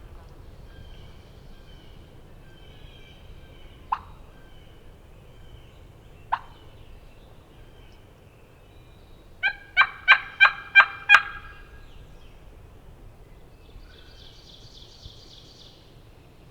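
Turkey call worked as hen talk: two sharp single clucks a couple of seconds apart, then a fast run of about six loud, raspy yelps, calling to draw an answering gobble from a tom. Songbirds chirp faintly in the background.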